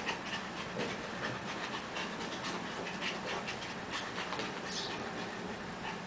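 Two small puppies playing chase on carpet: scuffling paws and many short, irregular clicks, with panting.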